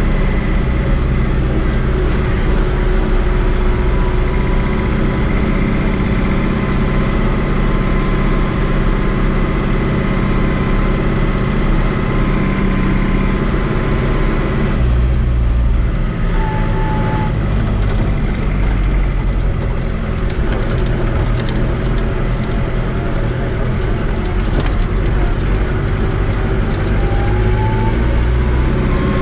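Fiat 80-90 DT tractor's diesel engine running steadily under way on the road, heard from inside the cab. The engine note shifts about halfway through, then settles again.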